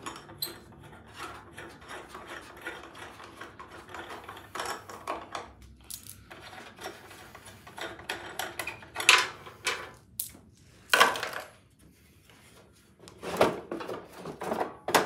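Hands working a 2021 Jeep Wrangler JL factory bumper: small clicks, rattles and clinks of nuts and parts while it is taken apart. In the second half come several louder scrapes and knocks of the plastic cover and steel beam being shifted.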